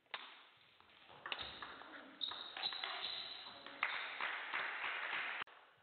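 Table tennis ball being struck by paddles and bouncing on the table in a rally: a few sharp clicks roughly a second apart, each ringing on in the hall's echo.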